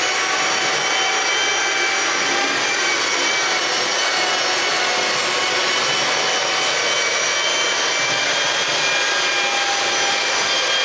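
Handheld electric paddle mixer running steadily, its paddle churning thick clay plaster of clay, sand and water in a plastic tub: a constant motor whine over the scraping swish of the mix.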